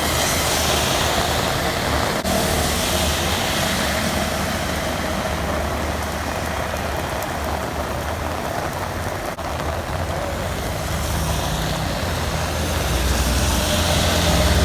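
Steady road-traffic noise with a low engine rumble, heard during rain; the rumble grows louder near the end as a vehicle comes closer.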